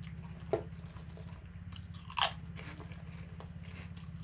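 A crisp prawn cracker being bitten and chewed: two crunches, a small one about half a second in and a louder one about two seconds in.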